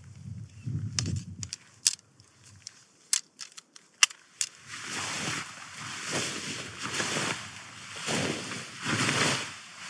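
A few sharp clicks of a Hilleberg Soulo tent's shock-corded poles being pulled apart and folded, then the tent's nylon fabric rustling and crumpling in repeated swells, about one a second, as it is bundled up.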